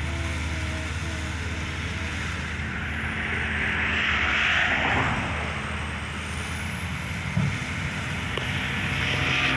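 Bulldozer's diesel engine running steadily, with a rushing noise that swells about halfway through and again near the end, and a single brief knock about three quarters of the way in.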